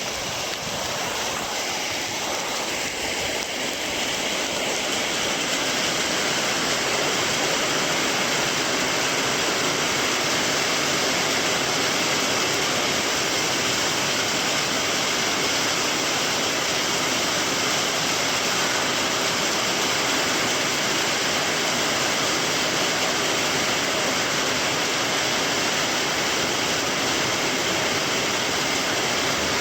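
Heavy rain pouring steadily, a dense even hiss that builds over the first few seconds and then holds.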